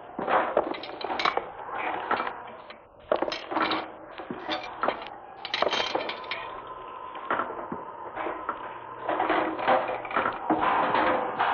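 A recorded sound effect of irregular clattering and knocking, many sharp hits at uneven intervals, played from an old vinyl record with a faint steady hum beneath.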